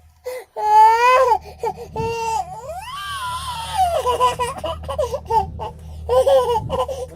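A baby's high-pitched vocalising: a rising squeal about a second in and a long wailing rise and fall, then short, choppy repeated bursts in the second half that sound somewhere between crying and laughing.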